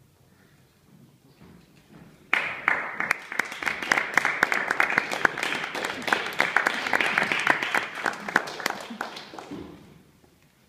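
Audience applauding: the clapping starts suddenly a little over two seconds in, with sharp individual claps close by, and dies away near the end.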